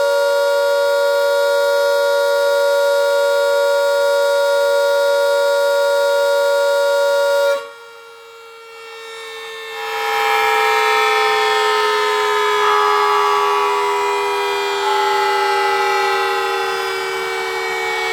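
Two outdoor warning sirens sounding together in steady, horn-like tones. They cut off abruptly about seven and a half seconds in, then swell back after about two seconds and slowly fall in pitch.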